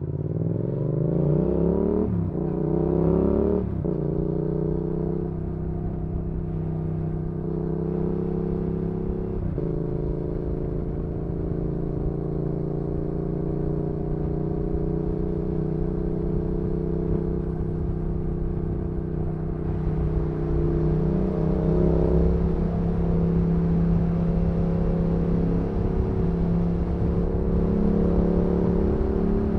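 Yamaha XSR700's parallel-twin engine through an aftermarket IXRACE MKII exhaust, accelerating with the pitch climbing and dropping at three upshifts in the first ten seconds. It then settles into a steady cruise, rising gently again a little past two-thirds of the way.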